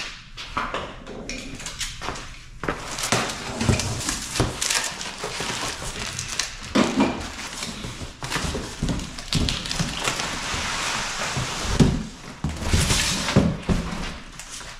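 A cardboard shipping box being opened by hand: a few footsteps at first, then stiff cardboard flaps and packing rustling and scraping, with repeated thumps as the inner carton is pulled out.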